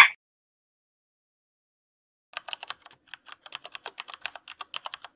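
Computer keyboard typing: a quick run of separate key clicks, several a second, starting about two seconds in, after a brief loud burst at the very start.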